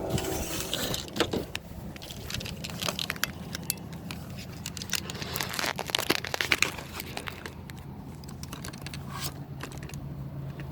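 Crackling, scraping handling noise on the recording device, with many scattered sharp clicks that are densest in the first seven seconds, over a low steady rumble like a vehicle engine.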